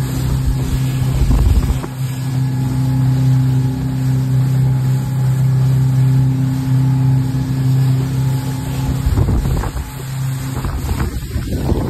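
Outboard motor of an aluminium motorboat running at speed with a steady drone, the hull slapping through waves and spray hissing off the bow. There are heavier splashes about a second in and again around nine to ten seconds, and the engine tone breaks up near the end.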